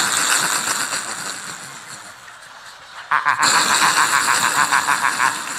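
Two men hacking, gagging and wailing in an exaggerated choking fit, a raspy rattling noise. It fades over the first two seconds, then starts again loudly about three seconds in.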